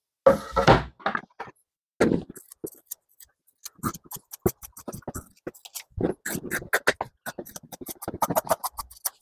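Scissors cutting through vinyl upholstery material along a traced line: a long run of quick, crisp snips, several a second. Near the start there is a brief knock and scrape as the plywood seat board is lifted off the vinyl.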